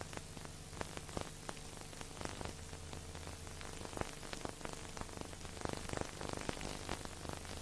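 Crackle and hiss of old-recording surface noise: a steady hiss with many scattered clicks and pops over a low, steady hum.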